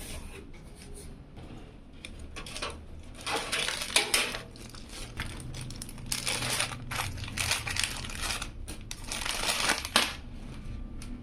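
Packing material from a PC case's box being handled, crackling and crinkling in repeated bursts with short pauses between them.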